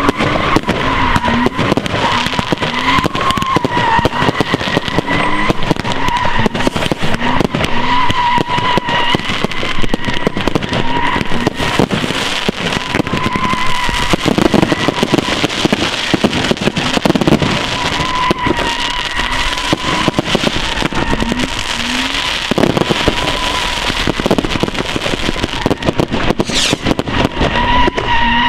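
BMW E36 328's straight-six engine revving up again and again while the car does donuts, its rear tyres squealing with a steady wavering tone throughout.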